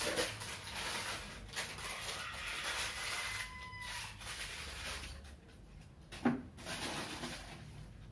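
Rustling and clicking of things being handled on a desk, with a short thin squeak-like chirp a little past three seconds and one sharp knock a little past six seconds.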